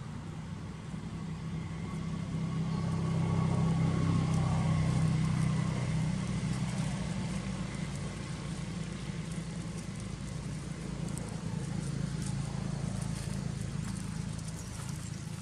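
Low, steady hum of a motor vehicle's engine, swelling a few seconds in and then slowly easing off.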